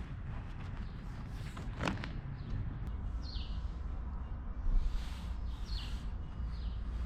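Low steady background rumble with a few sharp knocks, and three short falling chirps of a bird a little past the middle and near the end.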